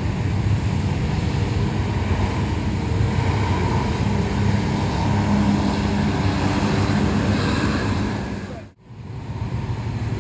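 Roadside traffic, with a passing coach's diesel engine giving a steady low hum over road noise. The sound drops out abruptly for a moment about nine seconds in, then returns.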